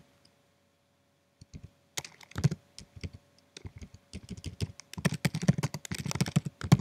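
Typing on a computer keyboard: a few scattered keystrokes, a short burst about two seconds in, then rapid continuous typing in the last couple of seconds.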